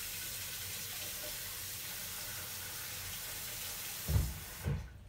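Bathroom sink tap running in a steady stream as toothbrushes are wetted under it. Two low knocks come near the end, and then the water stops.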